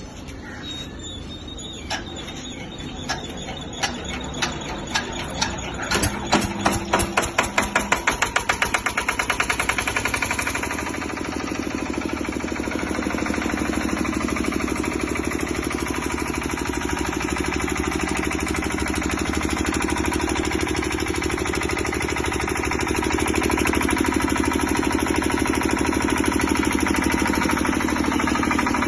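Bajaj 12.5 kVA diesel generator set's engine starting. Separate knocks come faster and faster until it settles into steady running about ten seconds in.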